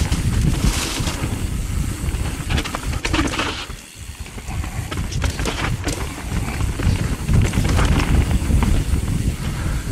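Transition Spire mountain bike rumbling and clattering down a rough dirt trail, with frequent knocks from the bike over roots and bumps and a brief lull about four seconds in. The rear tyre is flat, the bike rolling on its Tannus Armor foam insert.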